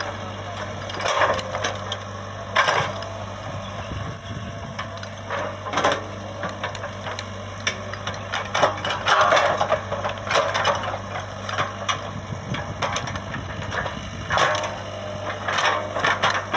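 Komatsu PC75UU excavator at work: its engine runs with a steady low hum while irregular cracks and crunches of material being broken and shifted sound over it.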